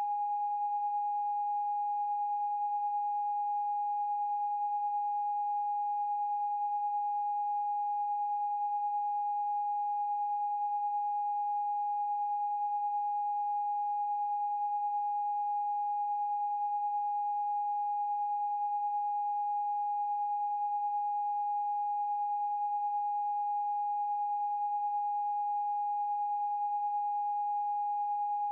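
A single steady electronic sine tone, one mid-high pitch held unbroken with no change in pitch or loudness.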